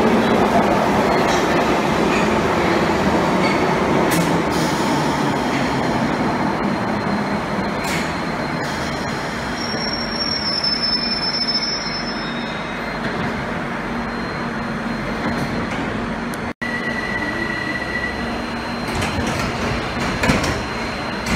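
A Bakerloo line 1972 Tube Stock train running into the platform and braking to a stop, its wheel and motor noise easing off, then a steady hum as it stands. After a break, a steady high beep sounds for about a second, and the doors shut with a knock near the end.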